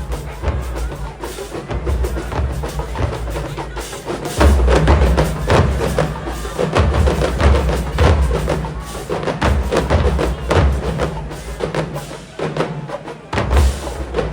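Marching band percussion playing a fast rhythmic cadence: crisp snare and rim hits over bass drums.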